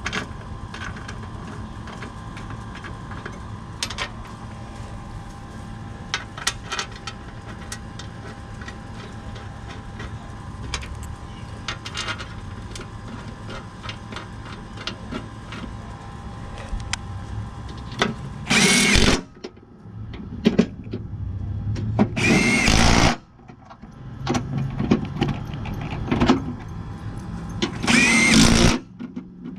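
Three short runs of a cordless power driver, each about a second long, running down the three bolts that hold a riding-mower deck's blade spindle. Before them, small metal clicks and clinks as the bolts are started, over a steady background hum.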